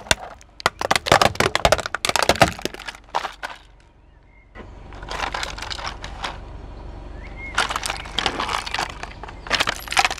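A car tyre rolling over and crushing brittle objects: a quick run of sharp cracks for the first three seconds or so, then, after a short lull, three bouts of crunching.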